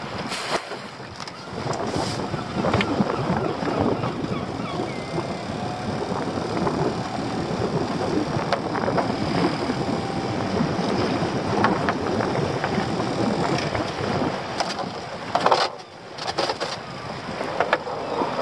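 Steady rush of wind and sea water around a small open fishing boat, with a few sharp knocks from a crab pot being handled.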